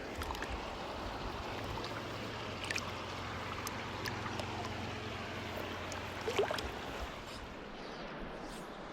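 Stream water running, a steady rushing, with a few light clicks and knocks over it.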